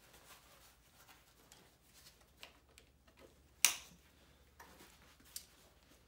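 A plastic side-release buckle on a pack's shoulder strap clicking shut once with a sharp snap a little past halfway, with light handling of webbing and a smaller tick near the end.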